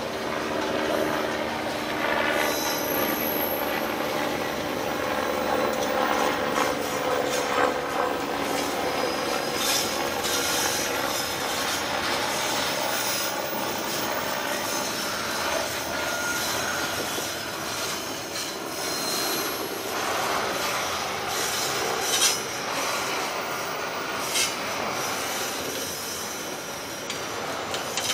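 Container wagons of a freight train rolling past on steel rails: a steady rumble and rattle of wheels and couplings. There are faint squealing tones from the wheels in the first several seconds, and a few sharp clanks, the loudest about 22 seconds in.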